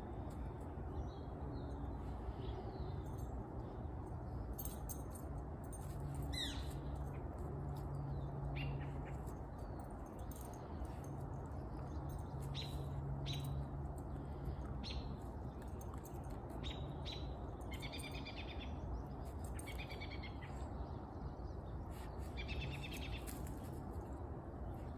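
Small birds chirping in the background: scattered short high chirps, one falling call about six seconds in, and quick trilled calls near the middle and again near the end. Under them runs a steady low rumble of outdoor background noise.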